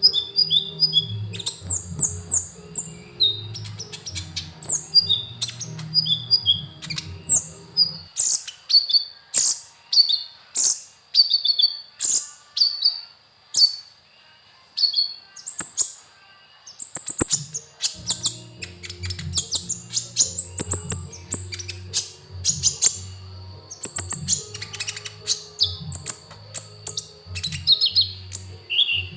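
A sunbird, the Indonesian 'kolibri ninja', singing after its moult: quick runs of sharp, high chirps and short twittering phrases, repeated throughout. Background music with a low beat plays under it, dropping out from about eight seconds to about eighteen seconds in.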